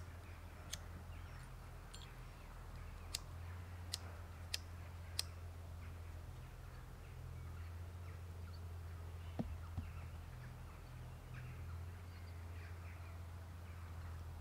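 A few sharp clicks and snaps, five in the first five seconds, as a compressed-sawdust fuel puck is broken into small pieces by hand over a small folding steel box stove, then two softer knocks about nine and a half seconds in. A low steady hum sits underneath throughout.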